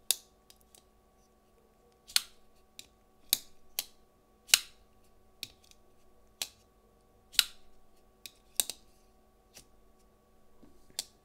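About a dozen sharp clicks and snaps at irregular intervals from a Three Rivers Manufacturing folding knife's crossbar lock and thumb-stud blade, as it is worked open and closed while still stiff and breaking in.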